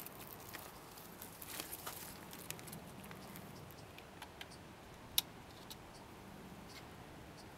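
Faint, irregular small clicks and taps of fingers handling a wooden pyramid metronome, with one sharper click about five seconds in.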